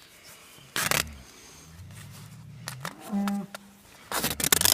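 Adhesive tape being pulled off the roll in short tearing bursts while a calf's leg is bound tight to a PVC splint, the loudest pull near the end, with a brief low vocal sound about three seconds in.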